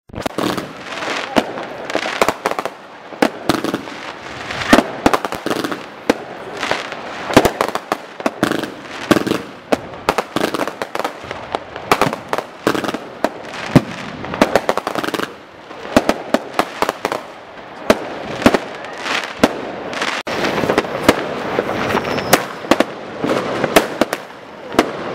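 Many fireworks and firecrackers going off at once: a dense, continuous stream of sharp bangs, several a second, over steady crackling.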